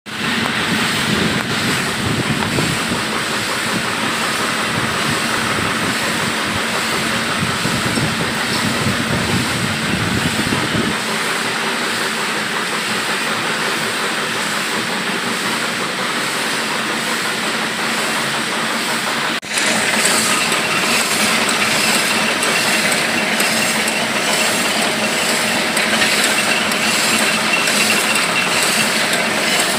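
Screw-making cold heading machines running in a factory, giving a loud, continuous, rhythmic metallic clatter. After a brief break about two-thirds of the way through, the machine sounds louder and closer, with a regular repeating beat.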